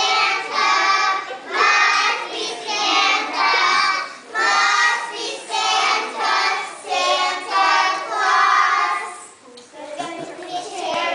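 A group of young children singing a song together in short phrases, with a brief drop near the end.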